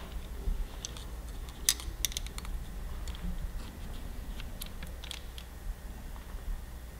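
Light, irregular metal clicks and small scrapes of a small pick tool working around a motorcycle throttle body to fish out the stock throttle return spring, over a faint steady low hum.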